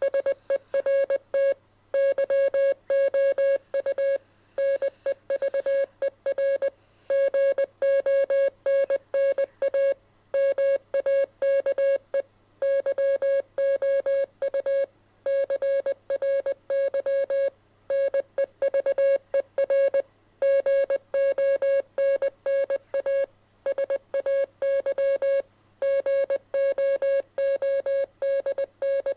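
Morse code sent as a single steady mid-pitched beep tone, keyed on and off in short dots and longer dashes with pauses between letters and words.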